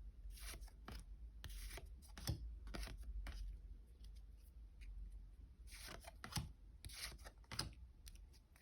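Trading cards being flipped through by hand: faint, short sliding and flicking strokes of card stock, one after another, a few a little louder than the rest.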